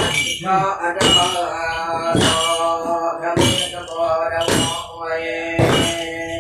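Iban ramban chanting: wooden staffs thumped on the floor about once a second to keep the beat, under chanting voices holding long pitched notes.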